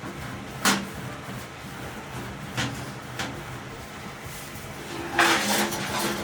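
Steel balls and rare-earth magnets working dents out of a brass tuba: a few sharp metal clicks, then about five seconds in a denser clinking rattle with a faint ringing of the brass.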